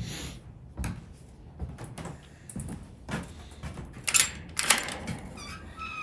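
A wooden loft door being handled and opened by its metal latch: scattered knocks and clicks, with two louder scrapes a little after four seconds in.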